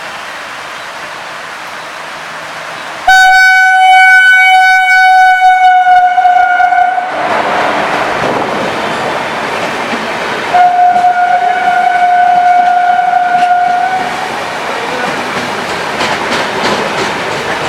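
Heavy rain hissing, then a WAP-4 electric locomotive's horn sounding two long blasts on one steady note, the first starting suddenly about three seconds in and the second about ten seconds in, each lasting roughly four seconds. Between and after the blasts the train runs past slowly with a dense rumble of wheels on rails under the rain.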